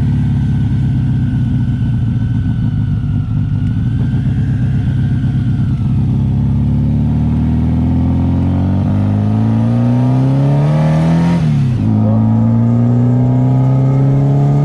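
Air-cooled VW flat-four engine heard from inside the cabin while driving. It runs steadily at first, revs up from about halfway, drops sharply at a gear change near the end, then pulls up again.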